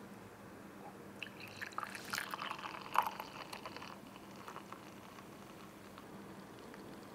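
A frothy green drink poured from a stainless steel pitcher into a double-walled glass mug. The splashing pour starts about a second in, is loudest around three seconds, then eases off to a faint trickle.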